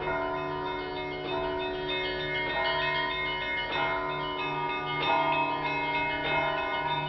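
Russian Orthodox cathedral bells ringing together before a service: several bells of different pitches sound at once, with a fresh stroke about every second and a quarter and the tones ringing on and overlapping.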